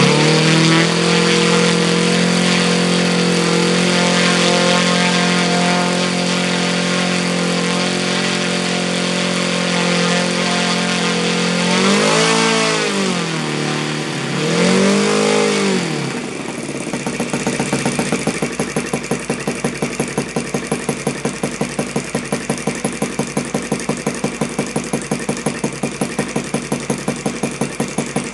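Yamada YS FZ-53 four-stroke model glow engine, fitted with an OS G5 glow plug, running steadily, with its pitch dipping and rising twice. After that it is throttled back to a slow, evenly pulsing idle of about 1320 rpm.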